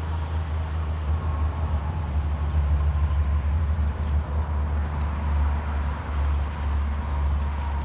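Steady low outdoor rumble that wavers slightly in level, with no distinct events standing out.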